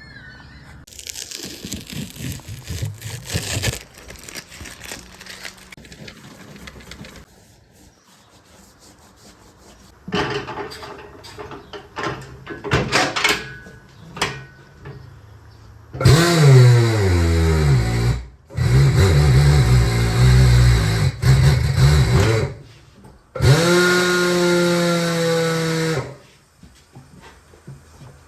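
Tire-shop machinery and tools at work. Early on there are bursts of clatter and scraping. Later a motor runs in several long loud spells: its pitch falls in one, then rises and holds a steady hum before cutting off.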